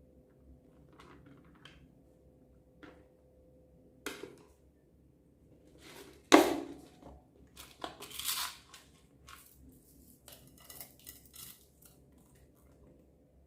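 Slime being handled and mixed, with scattered short clicks and crackles. A sharp loud clack comes about six seconds in, followed by bursts of crackling and rustling.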